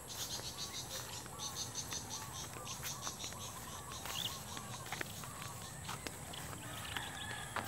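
Insects chirping in fast, evenly spaced high pulses in the grass, with short rising-and-falling chirps repeating lower down and a few faint footsteps on grass.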